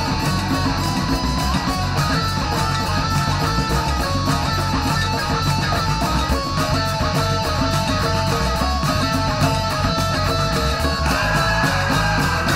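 Instrumental heavy rock: electric guitar playing a riff of single notes over a band's steady beat, with a long held note coming in near the end.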